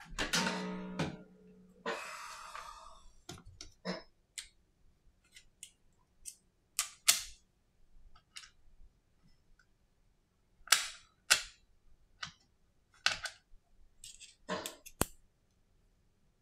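Handling sounds of an iPhone SE (2020) and a pry tool on a silicone repair mat: a brief buzzing hum at the start, then a scatter of separate light clicks and knocks.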